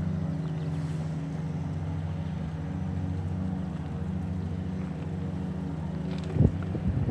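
An engine idling steadily, a low even hum. A sharp knock comes near the end.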